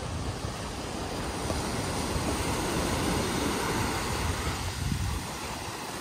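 Small waves washing up on a sandy beach, building over a few seconds and easing shortly before the end, with wind buffeting the microphone.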